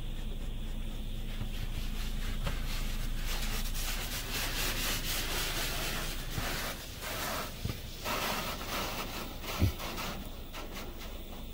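Spray from a touchless car wash's spinning sprayers hitting the car's windshield and roof, heard from inside the car as a pulsing hiss that builds a few seconds in and eases near the end. A single thump comes shortly before the end.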